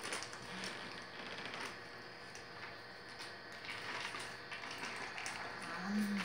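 Foil cream cheese wrapper crinkling in irregular crackles as it is peeled off the block.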